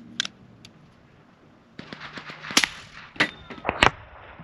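A suppressed CVA Scout 300 Blackout single-shot pistol being shot: a sharp click near the start, then from about halfway a cluster of sharp cracks and knocks. The shot itself is quiet, heard mostly as a click and a hit on the target.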